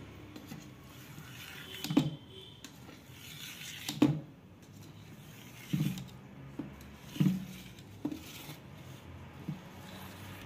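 A knife scoring a set slab of besan vadi in a steel plate, its blade knocking against the metal plate with each cut: about six short knocks spaced a second or two apart.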